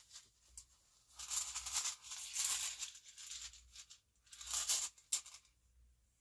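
A set of runes rattling together as they are shaken before one is drawn: a longer bout of rattling about a second in, then a shorter one just after four seconds.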